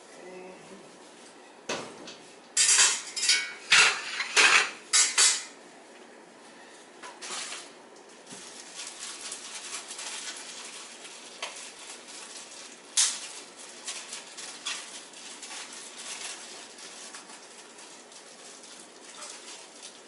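A metal utensil clatters and knocks against a stainless steel pot as pasta is stirred, in a quick run of loud strikes a couple of seconds in. This is followed by softer crackling and snapping as broccoli florets are broken off the head by hand, with one sharp snap midway.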